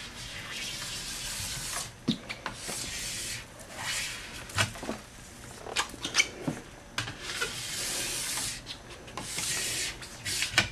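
Wax scraper being pushed tip to tail along an alpine ski base clamped in a vise, scraping off cooled wax. It makes a series of long rasping strokes of about a second each, with short knocks between strokes as the scraper is set back at the tip.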